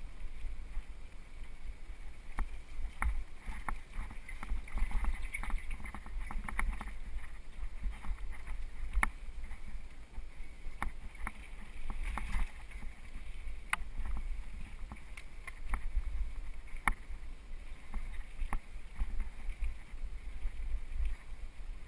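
Mountain bike rolling fast over a dirt singletrack: a steady low rumble of tyres on the trail, with irregular sharp clicks and rattles as the bike jolts over bumps.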